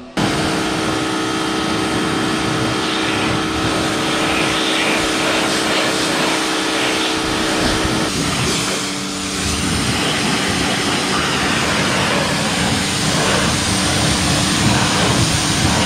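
Pressure washer running: a steady motor drone under the hiss of the water jet spraying a car's body and wheel.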